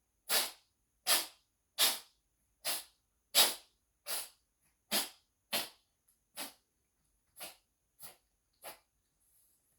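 A pet sneezing uncontrollably: twelve short, sharp sneezes in quick succession, about one every 0.7 seconds, growing weaker toward the end.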